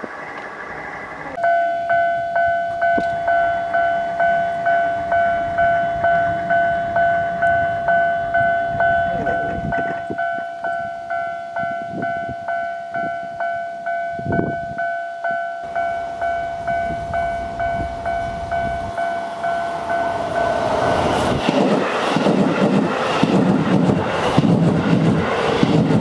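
Japanese level-crossing alarm bell starting about a second and a half in, a two-tone electronic "kan-kan" ding repeating about one and a half times a second. After about twenty seconds a Keisei electric commuter train arrives and passes close by, its wheels clattering over the rail joints in a steady beat that covers the bell.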